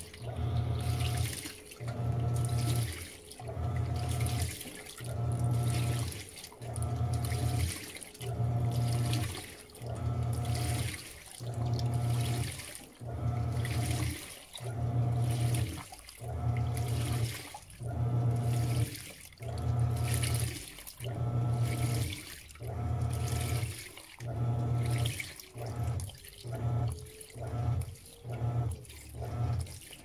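Panasonic 16 kg top-load washing machine agitating a wash load: the motor hums in regular strokes, about one a second, each churning and sloshing the soapy water and clothes. Near the end the strokes turn shorter and quicker.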